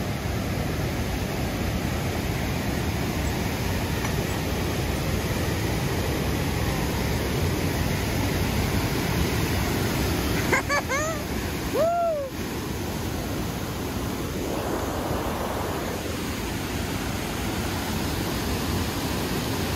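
Glacial mountain torrent rushing over boulders below the footbridge: a steady, loud roar of white water. About halfway through, a person's voice gives a couple of short whoops.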